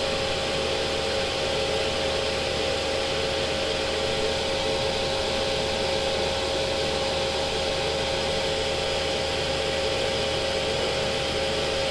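Steady machine running noise: an even hiss with a constant high hum held at one pitch, unchanging throughout.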